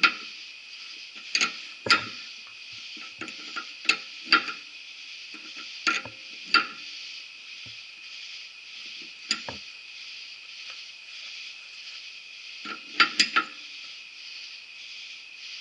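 Irregular metal clinks and knocks of hand tools working on a Model T Ford front axle's threaded bore, with a quick cluster of sharper knocks near the end, over a steady high hiss.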